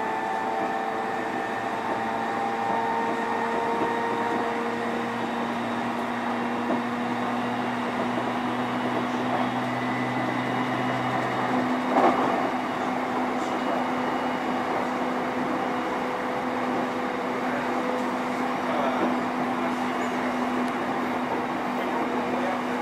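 Onboard running sound of a JR East E531 series electric train heard inside its motor car: a steady rumble of wheels on rail with the held whine of the VVVF inverter-driven traction motors. A brief knock about twelve seconds in.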